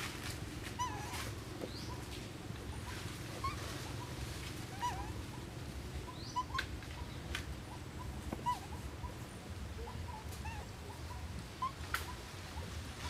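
Birds chirping: a dozen or so short chirps at irregular intervals, over a low steady rumble.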